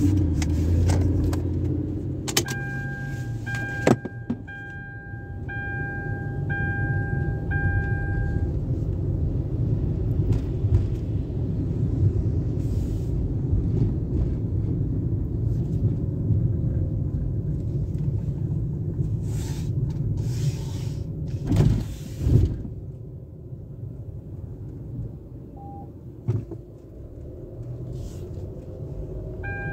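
Car cabin interior: steady low rumble of the engine and tyres as the car rolls slowly. An electronic chime beeps about once a second for several seconds near the start and again at the very end. Two short, louder noises come about two-thirds of the way through.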